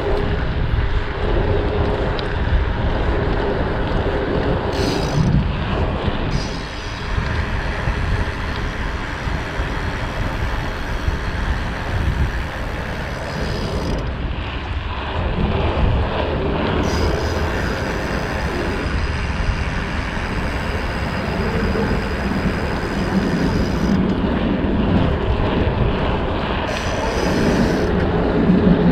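Steady rushing rumble of a bicycle ride: wind on the microphone and tyres rolling on the pavement, with no talking.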